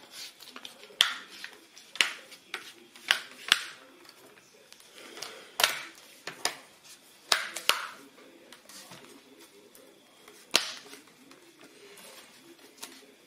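Snap-fit clips of a Lenovo ThinkPad L440's plastic LCD front bezel clicking into place as the bezel is pressed onto the screen lid: about eight sharp clicks at uneven intervals, the loudest about ten and a half seconds in. Faint TV voices murmur underneath.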